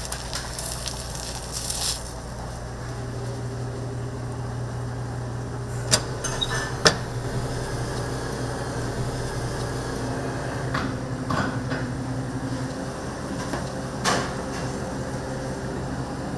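Food sizzling on a griddle for about the first two seconds, then a steady machine hum of kitchen equipment with a few sharp clinks of utensils or dishes, three of them standing out.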